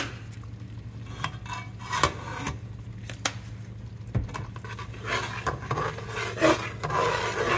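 Metal spatula knocking a few times against an aluminum pot, then scraping and stirring through thick gravy in the pot from about five seconds in, over a steady low hum.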